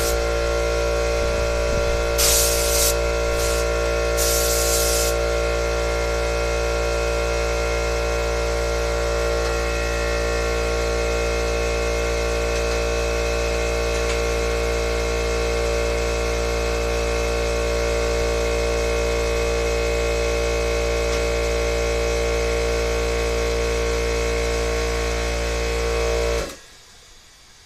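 Harbor Freight McGraw 8-gallon 1.5 HP oil-free air compressor running loud and steady as it pumps up the tank, with a few short bursts of hiss in the first five seconds. It stops abruptly about 26 seconds in.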